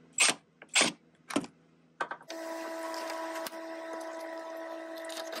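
Milwaukee M18 cordless drill driving in the 7 mm vent-window bolts with three short trigger bursts about half a second apart. From about two seconds in, a steady hum with a constant pitch runs on, stopping shortly before the end.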